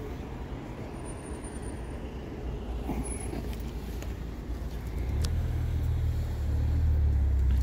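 Low rumble of a motor vehicle engine running close by, growing louder about five seconds in.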